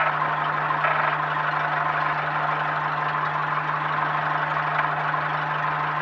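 Zenith STOL CH 750 light aircraft's engine and propeller running steadily at taxi power, heard inside the cockpit as an even drone with a constant low hum.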